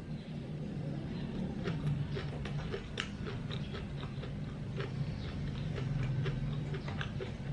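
Close-miked chewing of Vietnamese fresh spring rolls with shrimp and pork in rice paper: a run of irregular mouth clicks, with a low steady hum underneath.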